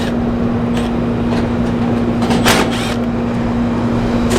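A steady machine hum with a few short clicks and rattles, the loudest about halfway through, as screws are taken out of an air-conditioning condenser's top panel.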